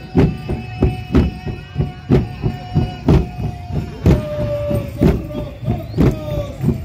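Carnival comparsa drums beaten by the dancers with sticks in a steady march rhythm, about two heavy strokes a second with lighter ones between. A long held high tone sounds over the drumming and drops in pitch about two-thirds of the way through.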